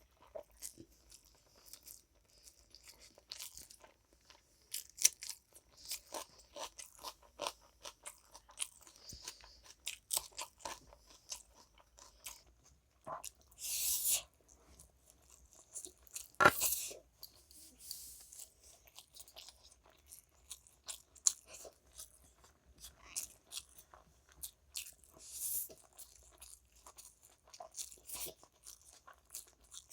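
Close-miked eating: crunchy bites and chewing with many small mouth clicks, and two louder crunches about halfway through.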